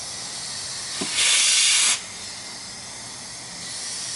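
Compressed air hissing from an air hose nozzle held to a fluid passage of an automatic transmission during an air check. About a second in there is a short thump, then a loud blast of air for under a second, then the steady hiss again. A thud like this is the sign of a clutch piston applying under air pressure.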